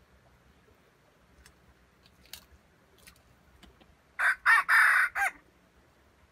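A junglefowl rooster crows once, about four seconds in: a short, clipped crow of about a second, broken into several parts. A few faint clicks come before it.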